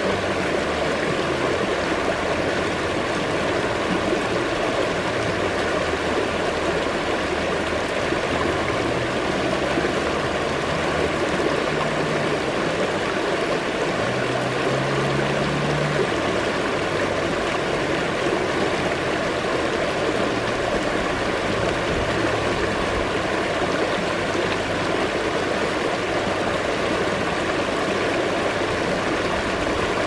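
Shallow river rapids rushing and splashing over rocks and boulders: a steady, unbroken water sound with no pauses.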